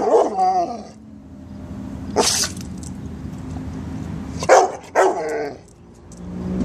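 A pit bull barks about four times, the first and last barks trailing off into a falling whine, with a low drawn-out grumbling moan between the barks.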